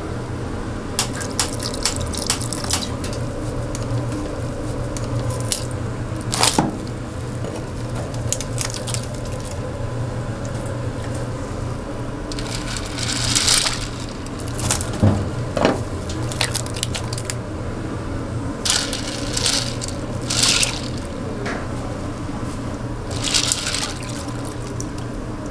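Water splashing and dripping, with scattered clicks and knocks and a few short louder splashes, over a steady low hum.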